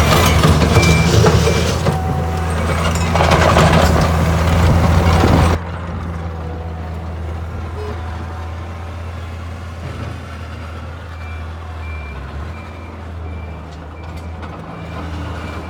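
Takeuchi TL130 skid steer's diesel engine running, loud and clattery for the first five seconds or so, then dropping suddenly to a quieter steady run. Its backup alarm beeps at the start and again from about eleven seconds in, a sign the machine is reversing.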